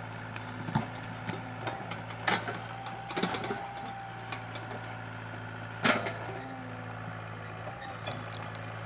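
Sumitomo mini excavator's diesel engine running steadily, with a hydraulic whine that comes and goes and scattered knocks and clanks from the machine at work, the loudest about six seconds in.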